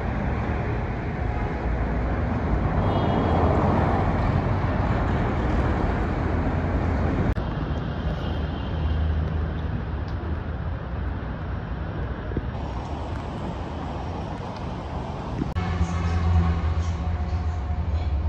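Road traffic on a multi-lane expressway: a steady noise of cars driving past. A vehicle goes by loudly a few seconds in, and a heavier engine drone rises near the end.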